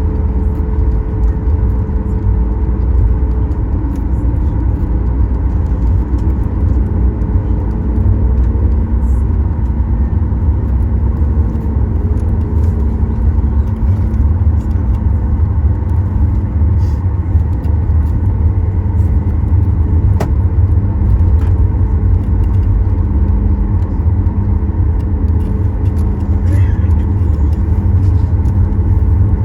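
Steady low rumble inside the cabin of a Boeing 737 MAX 9 taxiing after landing, its CFM LEAP-1B engines at idle, with two steady hums running through it.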